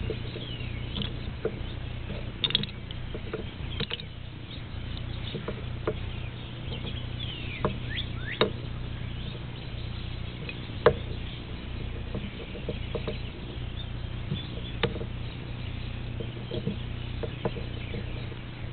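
Plastic Rubik's cube pieces being set down and turned over on a table: scattered light clicks and taps at irregular intervals over a steady low hum.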